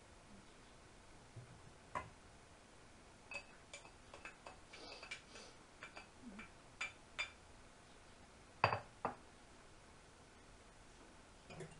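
Kitchen utensils clicking and tapping as filling is scraped from a glass bowl with a plastic spatula: a scattered string of light clicks, then two louder knocks close together about nine seconds in.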